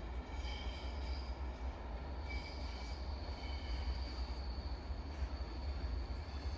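Train hauled by Class 37 diesel locomotives running by: a steady low rumble with thin high-pitched squealing tones from the wheels that come and go, one held steadily from about two seconds in.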